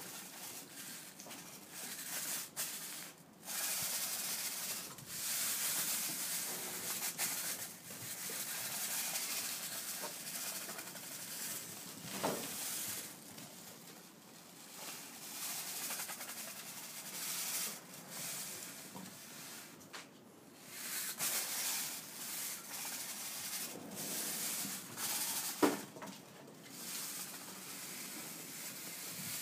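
Stiff broom bristles scraping and rubbing over stone paving in uneven strokes as a Weimaraner pushes and drags the broom. A single sharp knock comes near the end.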